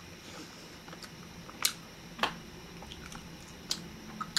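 A person chewing a large, sticky gummy sweet, with about four sharp mouth clicks spaced out through the chewing.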